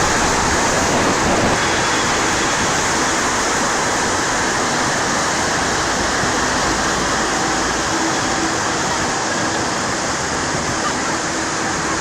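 Floodwater rushing, a loud steady wash of water noise.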